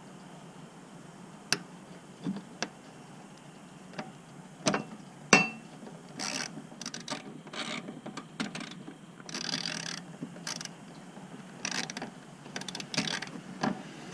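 Sharp metallic clicks and taps, then a run of short scrapes, as a steel nut is worked by hand onto a motorcycle muffler mount bracket bolt, trying to start its thread.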